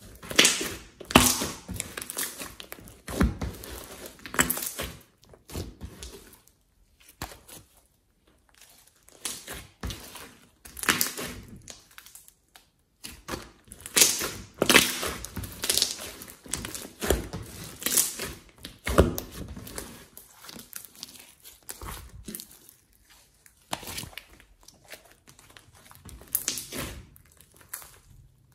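A large mass of glossy slime flecked with small beads being squeezed, folded and stretched by hand. It makes irregular sticky, squelching bursts, some much louder than others, with short quiet pauses between handfuls.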